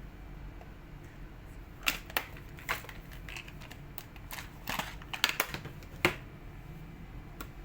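Irregular sharp clicks and small plastic snaps from hands and tools working on the HP 1000 laptop's plastic case, about a dozen in all and bunched in the middle.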